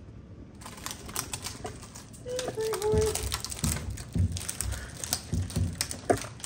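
A dog's claws clicking and scrabbling fast and irregularly on the kennel floor and door as it jumps up for a treat, with a short whine about two and a half seconds in.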